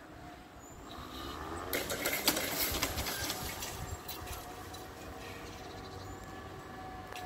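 Level-crossing barrier drive running as the red-and-white booms lower, a steady thin whine that sags slightly in pitch near the end. Before the whine settles there is a louder spell of rustling noise and clicks.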